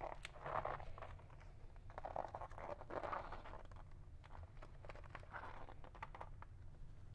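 Hands stretching a banana-seat cover over a metal seat pan and handling the seat on cardboard: faint rustling and scraping with light clicks, in a few short spells, over a low steady hum.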